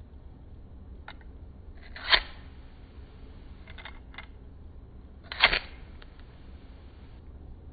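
Flint-wheel lighter struck twice, each a short sharp scratchy rasp. The first, about two seconds in, does not light it; the second, about five and a half seconds in, catches the flame. A faint hiss and a few small clicks come between the strikes.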